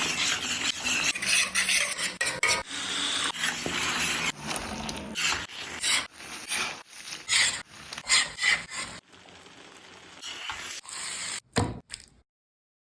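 Spatula scraping and stirring food on a hot tawa, with frying sizzle and irregular clicks of metal on the pan; the sound cuts off suddenly near the end.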